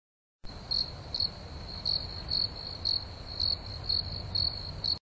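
Insects chirping: a steady high trill with louder chirps about twice a second, over a low rumble, starting about half a second in.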